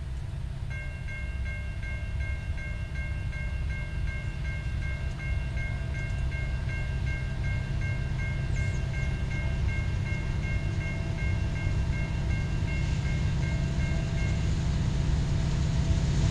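Approaching Norfolk Southern freight train led by an SD70ACE diesel locomotive: a low rumble growing steadily louder. A bell rings over it in an even rhythm, about three strokes a second, and stops a couple of seconds before the end.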